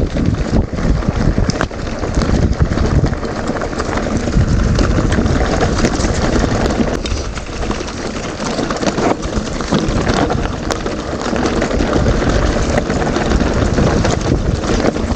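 Wind rushing over an action camera's microphone as a mountain bike rolls along a rough dirt trail, tyres running over the ground with many small clicks and knocks from the bike. The noise stays steady and loud throughout.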